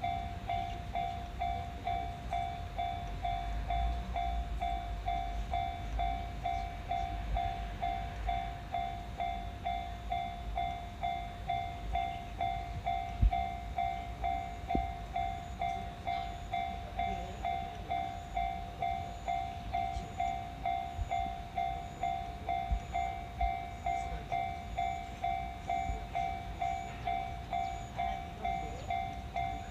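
Japanese railroad crossing's warning bell ringing its 'kan-kan' tone in a steady, quick, even rhythm. Under it, a train rumbles past the crossing.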